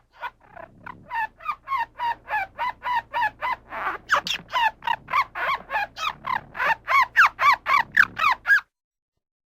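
Squirrel chattering: a rapid run of short, squeaky calls, about three a second, each dropping in pitch. The calls grow louder toward the end and stop abruptly about a second before the end.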